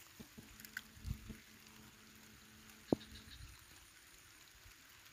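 Faint background with a few soft, low knocks in the first second or so and one sharp click about three seconds in.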